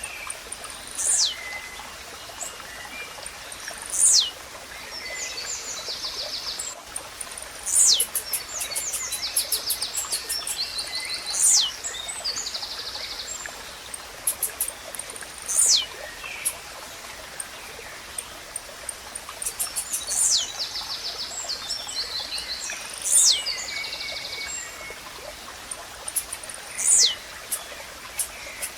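Blue-black grassquit (tiziu) singing: a short, sharp falling note repeated about every three to four seconds. Between the notes come fast high ticking and buzzy chirps from other birds or insects, over a faint steady rush of running water.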